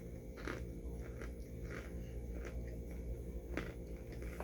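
A person chewing crunchy microwaved cornstarch chunks close to the microphone, with about half a dozen irregular crunches.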